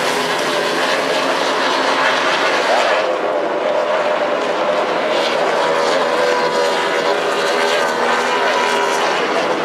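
Racing outboard engines of Formula 2 powerboats at full throttle: a loud, steady whine made of several overlapping pitches that rise and fall slightly as the boats pass.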